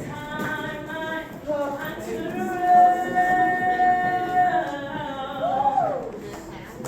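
Woman singing a church song, holding one long steady note through the middle of the phrase and bending the pitch down and back up near the end.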